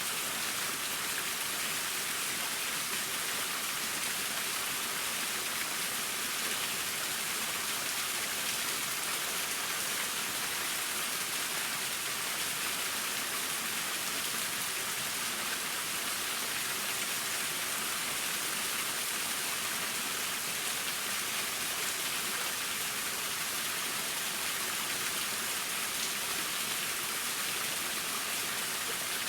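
Waterfall: water falling and splashing onto rocks as a steady, unbroken hiss.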